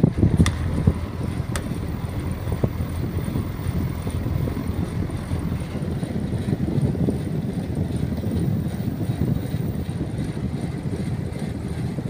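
Elektroclima split air conditioner outdoor unit running, its condenser fan blowing a steady, rumbling rush of air. A couple of faint clicks come in the first two seconds.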